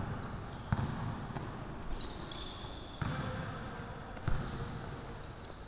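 Basketball bouncing on an indoor court, a few dull thuds at uneven spacing that echo around a large hall, with short high squeaks of sneakers on the court floor in between.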